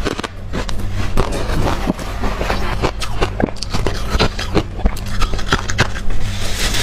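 Crushed freezer ice being chewed close up: a dense, irregular run of sharp crunching cracks.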